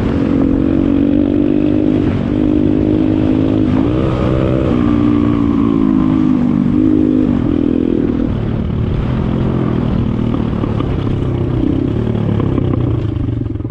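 Pit bike's small single-cylinder engine running at a steady speed, with brief revs that rise and fall around two and four seconds in, then settling to a lower, idle-like speed after about eight seconds.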